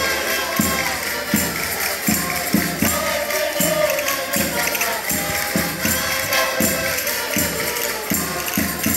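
Portuguese folk group singing a rusga together in mixed voices, with tambourines jingling and a steady low beat about every three-quarters of a second.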